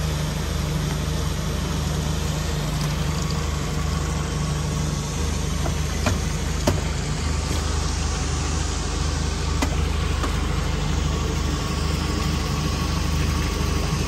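Outboard motor of an aluminium boat running steadily, with a low, even hum, and a couple of faint ticks near the middle.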